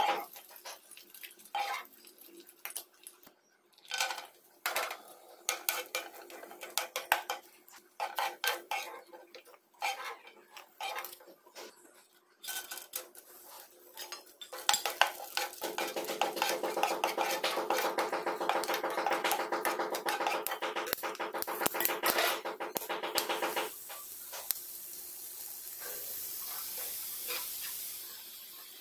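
Slotted metal spatula scraping and clicking against a nonstick frying pan as nuts and then peeled watermelon seeds are stirred in hot fat, with light sizzling. About halfway through the stirring and sizzling turn dense and continuous, then give way to a softer steady sizzle near the end.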